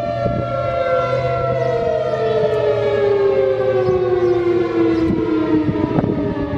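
Federal Signal Thunderbolt 1000 outdoor warning siren winding down at the end of a full alert blast, its wailing tone falling steadily in pitch. The level holds even rather than sweeping, as the rotator appears to be broken, and the sound echoes off the surrounding buildings.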